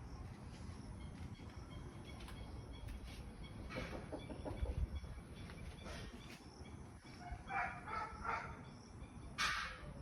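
Short animal calls in quick bunches in the second half, over a low steady rumble.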